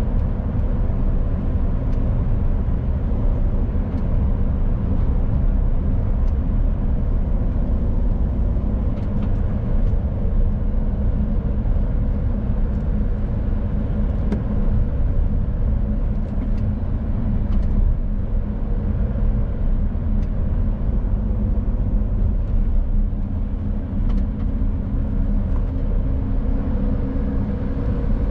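A 2018 Mercedes Actros truck driving steadily on the road: a constant low engine drone and road rumble with a few faint steady tones above it.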